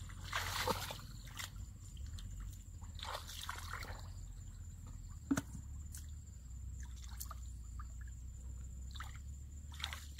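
Hands and feet moving through shallow muddy water: scattered small splashes and sloshes, the loudest about half a second in, with a single sharp knock midway and a steady low rumble underneath.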